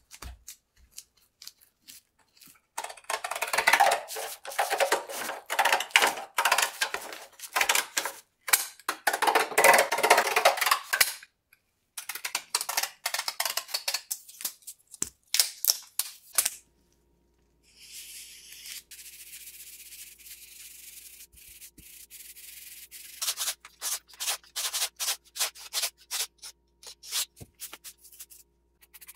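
Gloved hands rubbing and pressing dry carbon fibre cloth onto a tape-backed metal door sill, a dense crackling. In the middle there are separate snips of scissors cutting the cloth, then a steady hiss for a few seconds, and the crackling handling comes back near the end.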